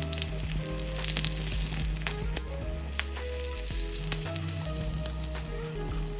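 Food sizzling in a hot frying pan, a steady hiss with scattered sharp crackles.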